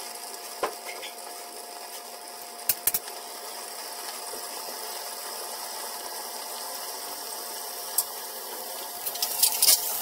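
Batter-coated fish fillets frying in oil in a pan covered with a glass lid: a steady sizzle with occasional sharp pops and spatters, several of them close together near the end.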